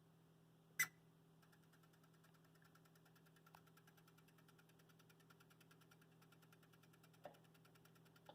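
Faint, fast, evenly spaced electrical ticking from a Broadway Limited HO-scale UP 4-12-2 model locomotive with its sound turned off, starting about a second and a half in after one sharp click, over a steady low hum. The owner asks whether a bad decoder or a mechanical problem is behind the clicking and chirping.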